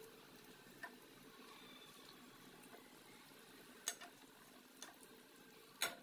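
Fish and potato curry simmering in a pot: faint bubbling with a few sharp pops, the loudest near the end.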